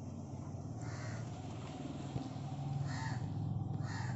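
Crows cawing, a call about three seconds in and another near the end, over a steady low hum.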